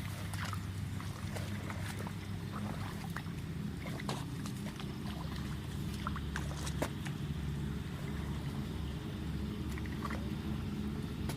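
A small engine running steadily with a low hum, with scattered light clicks over it.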